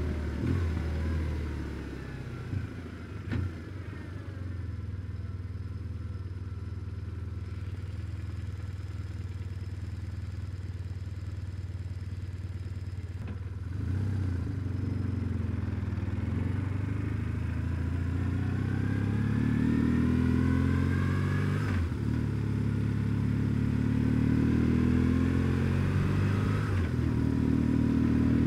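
BMW R1150GS boxer-twin engine slowing down, then running low and steady for about ten seconds. It then pulls away and accelerates, rising in pitch through the gears with shifts about two-thirds of the way in and near the end.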